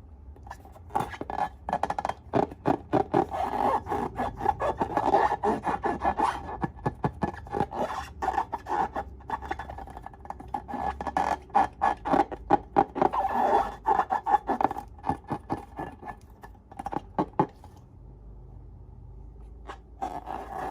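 Slime being squished and worked by hand, a dense run of wet crackling clicks that stops about three seconds before the end and starts again right at the end.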